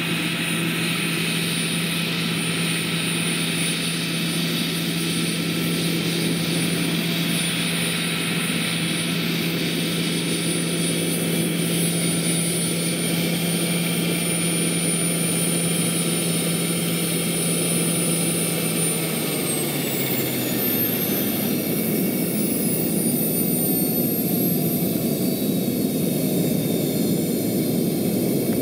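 Jakadofsky Pro 6000 turbine and rotor of a large scale model Aérospatiale Gazelle helicopter running with a steady high whine as it hovers and sets down. About two-thirds of the way in, the whine and the engine's lower tone slide down in pitch as the turbine winds down, leaving a rushing rotor noise.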